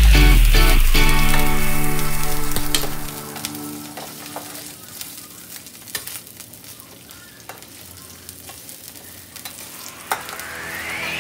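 Chopped onion and green pepper sizzling in hot oil in a nonstick frying pan, stirred with a metal spatula that scrapes and taps the pan now and then. Background music fades out about three seconds in and comes back near the end with a rising sweep.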